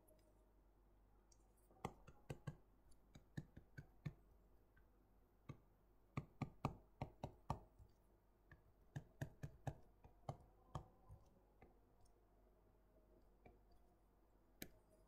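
Faint clicking taps of a stylus on a tablet screen during handwriting, coming in short clusters of quick ticks with pauses between.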